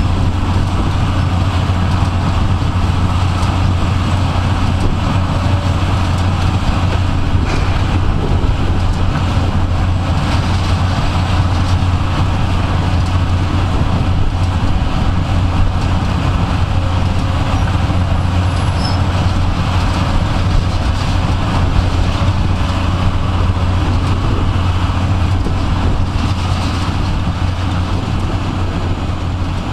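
Tracked mobile jaw crusher and its diesel engine running steadily: a constant low drone with no distinct impacts, easing off slightly near the end.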